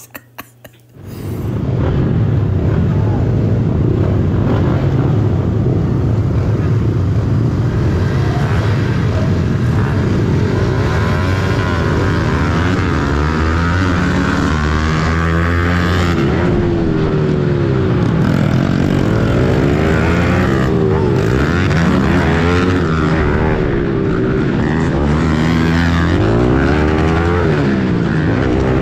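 Pit bike engines revving hard from about a second in, the pitch rising and falling with the throttle, heard up close from the rider's own bike.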